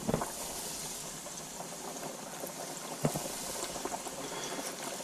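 Hot oil in an electric deep fryer sizzling and bubbling steadily as floured mangrove snapper fillets are lowered in. There are two brief knocks, one at the start and one about three seconds in.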